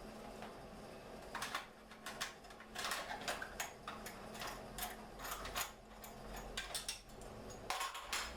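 Irregular light clicks and taps, a dozen or so, bunched between about one and eight seconds in, over a steady low hum.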